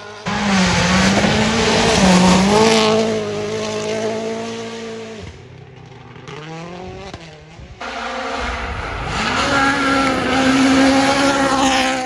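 Hyundai i20 N Rally1 car's turbocharged four-cylinder engine running flat out at high revs on gravel, loud and then fading away. Near eight seconds it returns suddenly, the revs rising as the car comes close again with gravel hissing from its tyres.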